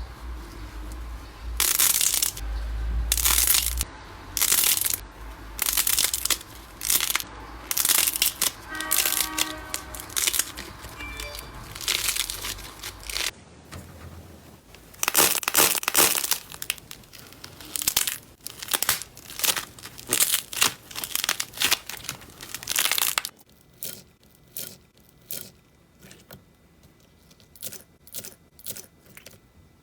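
Slime being squeezed and stretched by hand, giving repeated bursts of crinkling, crackling and popping. They come thick and loud at first, then turn to sparser, quieter clicks near the end.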